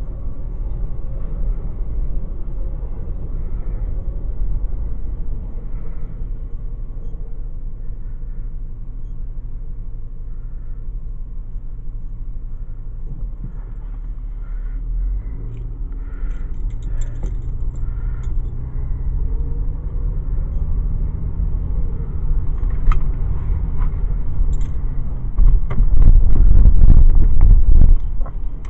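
Car driving, heard from inside the cabin: steady engine and road rumble. The engine note rises about halfway through as the car speeds up, and the rumble grows louder near the end.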